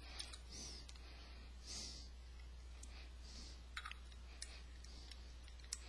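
A few faint clicks of the carburetor float bowl being fitted and seated by hand on a Nikki carburetor, the sharpest near the end, with soft breathing between them.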